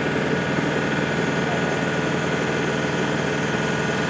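A military bridge-carrier truck's diesel engine running steadily at idle while it drives the hydraulic launcher that moves the Rapidly Emplaced Bridge deck.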